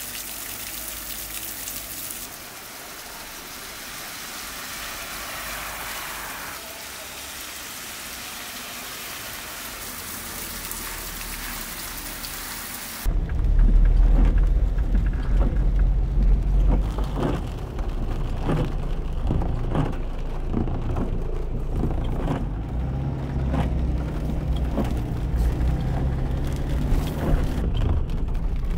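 Heavy rain pelting a paved street and splashing in puddles, a steady hiss. About halfway through it changes abruptly to the louder, low rumble of a car driving on wet streets, heard from inside the cabin, with frequent ticks and knocks.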